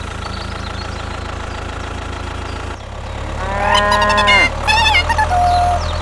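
Tractor engine running with a steady low hum, and a cow mooing once, long and rising then falling, about three and a half seconds in, followed by brief high chirps.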